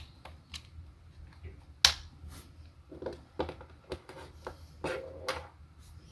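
Plastic parts of a power bank's casing being handled and pried apart by hand: scattered sharp clicks and snaps, the loudest about two seconds in, with a few short creaks.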